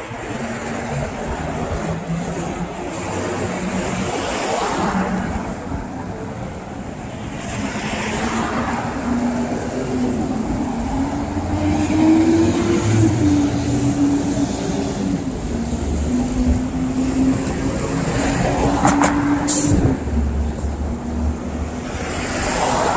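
Street traffic: vehicles passing one after another, over a steady vehicle hum that rises slightly in pitch midway and stops abruptly a few seconds before the end, just after a sharp click.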